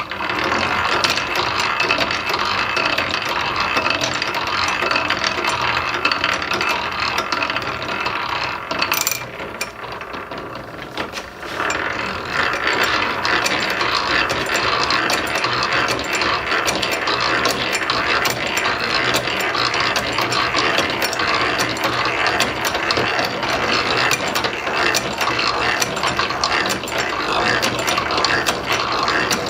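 Hand-cranked drill press cranking steadily, its gears running and its automatic feed pawl clicking rapidly over the ratchet wheel as a 5/16 bit is forced down into steel plate. The clicking eases off briefly about nine seconds in, then picks up again.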